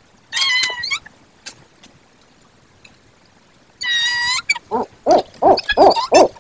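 Barred owls calling during a food delivery at the nest box: a drawn-out high call about half a second in and another near four seconds, then a quick run of shorter, lower notes that rise and fall.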